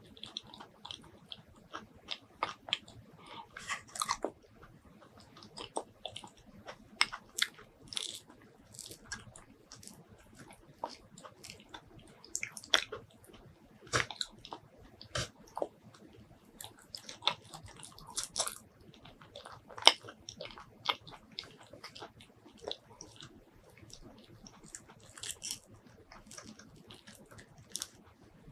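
Close-miked eating sounds of mini durian: wet mouth smacks and chewing of the soft flesh, with the thin rind peeled and pods pulled apart by hand. Irregular sharp clicks and smacks, several a second at times.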